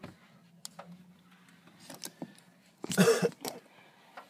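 A person coughing once, sharply, about three seconds in, with a smaller cough just after. Before it there are only faint rustles and small clicks.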